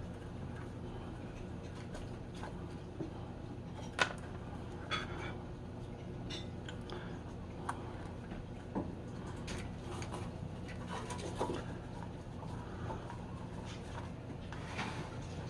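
Scattered light clicks and knocks over a steady low hum, the sharpest about four seconds in.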